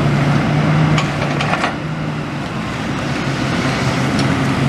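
Demolition excavator's engine running steadily, with a few short clatters of broken brick and rubble about a second and a half in.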